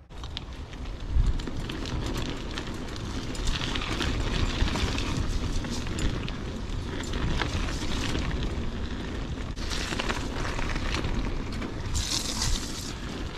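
Huffy Good Vibrations klunker bicycle ridden over rough ground at speed: wind buffeting the microphone with a steady low rumble, and constant clattering and rattling from the bike and tyres.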